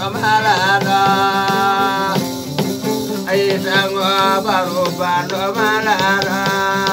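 A man sings in a strong, wavering voice, holding long notes, over a plucked skin-covered West African lute that keeps up a steady drone and rhythmic plucking.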